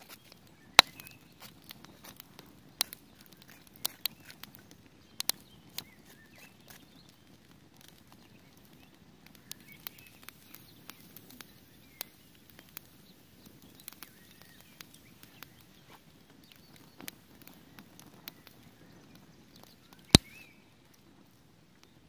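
Pine-wood campfire crackling, with sharp, irregular pops; two pops, about a second in and near the end, are much louder than the rest.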